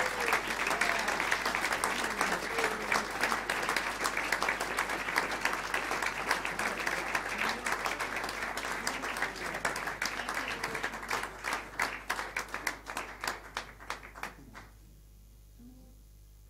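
Audience applauding at the end of a song, with a few voices calling out over it. The clapping thins to scattered claps and stops about two seconds before the end.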